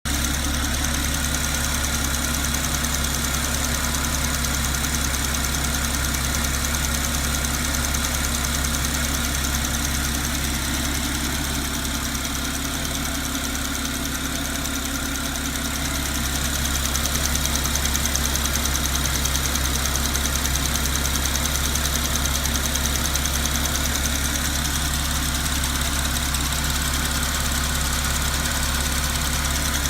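Porsche Cayman S 987.2's direct-injected 3.4-litre flat-six engine idling steadily with a fast, continuous ticking. The owner cannot tell whether the tick is normal or a fault.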